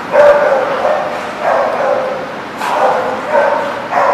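Dogs barking and yipping in about five short pitched bursts during rough play between two dogs.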